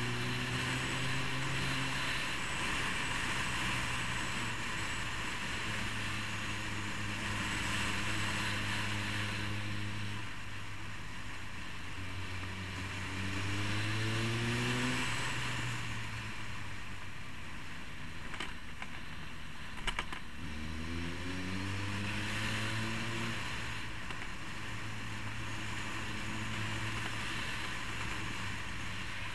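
Road motorcycle engine pulling through the gears, its pitch rising and settling three times, under steady wind noise on the helmet microphone. Two sharp clicks come about two-thirds of the way through.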